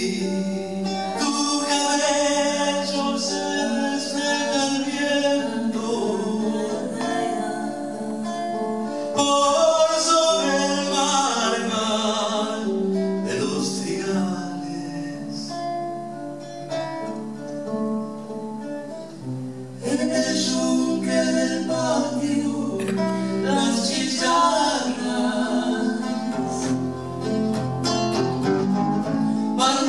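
A man singing a folk song with guitar accompaniment.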